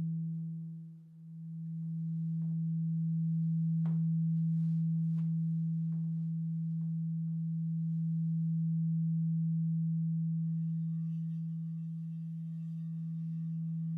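Quartz crystal singing bowls ringing: a deep, pure, steady hum that dips sharply about a second in and swells back. A few faint knocks follow, and about ten seconds in higher bell-like tones join as another bowl starts to sound.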